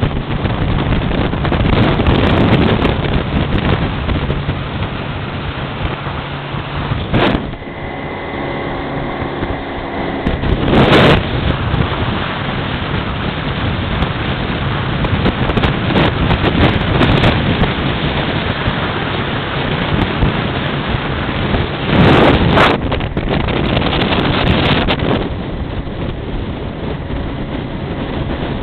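Small motor cruiser running at speed through choppy water: a steady engine hum largely buried under heavy wind buffeting on the microphone and the rush of water along the hull, with a few short louder surges of noise.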